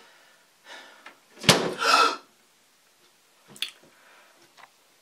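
Mirrored bathroom cabinet door shut with a sharp knock, followed at once by a short, sharp gasp. A couple of lighter clicks come a couple of seconds later.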